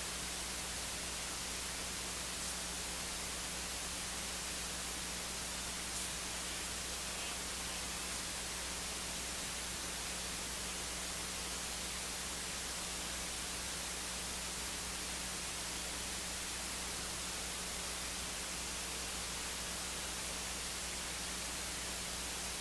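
Steady hiss with a low, constant hum, the bare noise floor of the audio feed, with a faint click about six seconds in.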